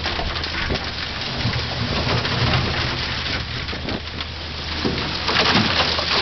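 High-pressure water jet blasting hardened concrete out of a mixer drum: a steady hiss of spray with rapid clattering and knocking of concrete chips breaking off and falling, over a steady low machine hum.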